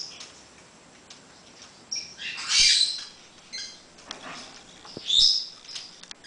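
African grey parrot giving three short, harsh squawking calls, the first and loudest about two and a half seconds in, with a couple of light knocks in between.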